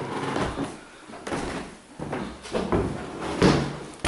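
A series of knocks and thuds, roughly one a second.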